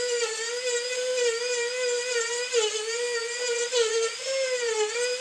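Marathon micro motor handpiece running with a small rotary bit cutting feather strokes into carved wood: a steady high whine that wavers slightly in pitch.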